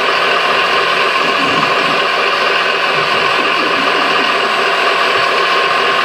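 Radio-controlled scale Liebherr 956 hydraulic excavator running: a steady mechanical whine and whirr of its hydraulic pump and gears, several constant tones over a hiss.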